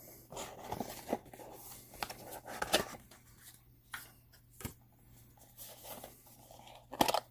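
Cardboard box and packaging being handled and rummaged through: scattered rustling with light clicks and taps, the loudest burst near the end.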